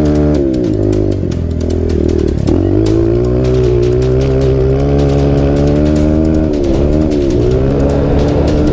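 Single-cylinder four-stroke trail motorcycle engine running under load on a dune ride. Its pitch drops and climbs back three times, about half a second in, around two and a half seconds in, and near the end, as the throttle is rolled off and back on.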